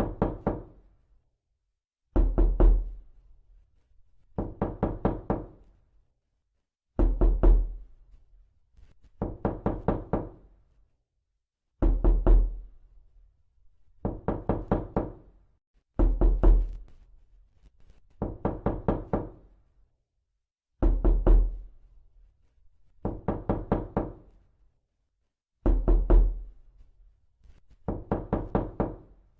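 Knocking: quick runs of four to six solid knocks, each run repeated about every two seconds with dead silence between.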